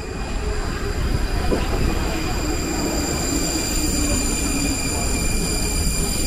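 Subway train running, a loud steady rumble.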